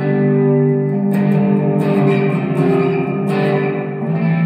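Harley Benton SC-450 Plus electric guitar strumming a run of chords with a pick. A new chord is struck about every second and each one is left to ring.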